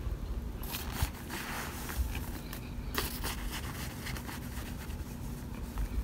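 Plastic spoon scraping and digging through a pan of oven-baked cornstarch chunks, crushing them with a dense, fine crackling crunch that starts about a second in.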